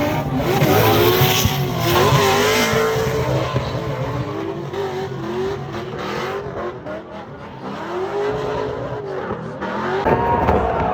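Drift car's engine revving up and down with tyres squealing as it slides. The revs drop off about two-thirds of the way through, then build again.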